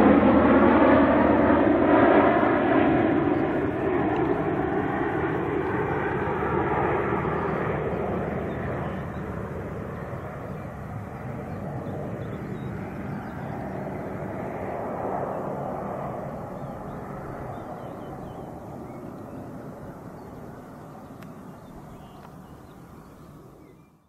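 RAF Airbus A400M Atlas C1's four TP400 turboprops, with eight-bladed propellers, humming in flight: several droning tones at once that dip slightly in pitch as the aircraft passes, then fade steadily as it flies away. The sound cuts off suddenly near the end.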